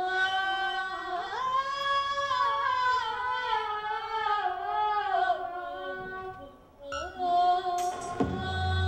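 A woman singing a long, ornamented vocal line, her pitch wavering and gliding, with no accompaniment. The phrase falls away about six seconds in, and a new sung note begins a second later. Near the end a low, steady drone comes in under the voice.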